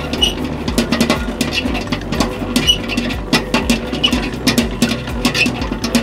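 Commercial spiral dough mixer running: a steady motor hum with irregular knocks and clatter as the dough hook works a heavy bread dough around the steel bowl.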